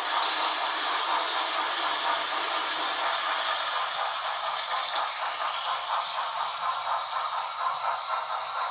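Sound effects from an HO scale model steam locomotive stopped at a water tower: a steady hiss with a light rattling, clattering texture.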